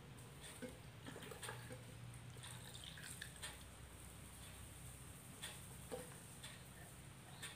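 Faint trickle of water poured from a small plastic cup through a plastic funnel into a small bottle, with scattered light clicks and knocks of plastic.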